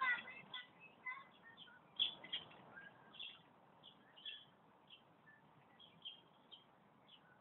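Songbirds chirping in trees: scattered short, high calls, busier near the start and thinning later. A single sharp knock sounds about two seconds in.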